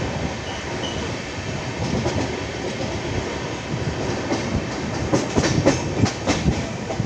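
LHB passenger coach running along the track, a steady rumble of wheels on rail heard from the open doorway, with a quick run of sharp wheel clicks over the track about five seconds in.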